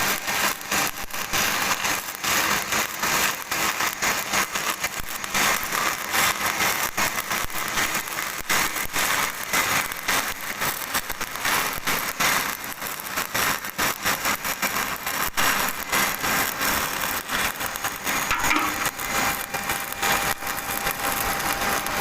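Electric welding arc crackling and sputtering steadily.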